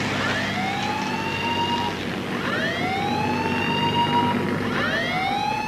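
Ship's alarm siren sounding three times, each a rising whoop that climbs and then levels off, about every two and a half seconds, over a steady low hum. It is the alarm for a landing on deck, with all hands ordered to take cover and the fire party standing by.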